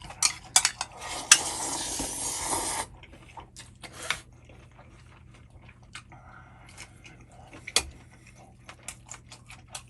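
Utensils clicking against dishes. A steady scraping, rustling noise runs for about two seconds, starting about a second in, and scattered single clicks follow.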